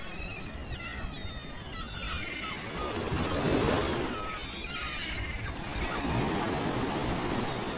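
Sea waves washing against rocks, with a wave surging in about halfway through, while small birds chirp repeatedly over the surf.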